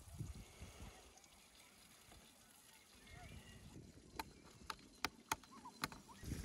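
Hard-boiled egg tapped against a wooden cutting board to crack its shell: about six sharp, short taps starting about four seconds in.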